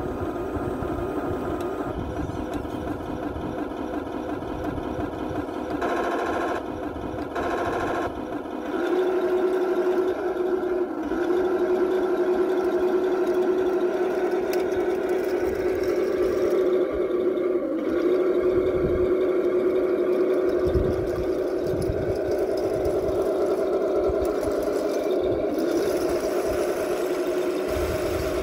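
Heng Long King Tiger radio-control model tank running and driving: a steady motor hum and whine, two short surges about six and seven seconds in, then louder and steadier from about nine seconds in as it drives off.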